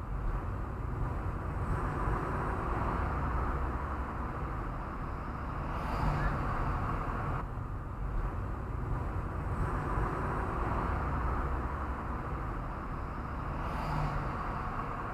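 Steady road and running noise of a car driving, heard inside the cabin through a dashcam's built-in microphone. The sound dips and changes briefly about halfway through.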